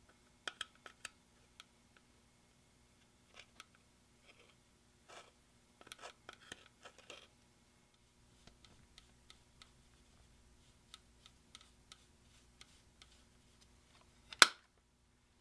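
A metal tool scratching and crumbling pressed eyeshadow in a plastic palette, with soft crackles and small clicks in short clusters, then a run of faint ticks as the powder is tipped out. One sharp click near the end is the loudest sound.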